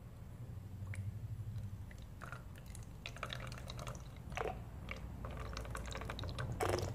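Witch hazel toner squeezed from an upturned flip-top plastic bottle, trickling and dripping through a plastic funnel into a clear plastic bottle, with a crackle of quick little clicks that grows busier from about two seconds in.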